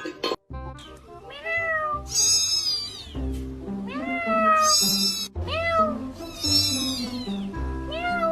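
A domestic cat meowing repeatedly, about seven meows that each rise and then fall in pitch, some much higher than others, over background music.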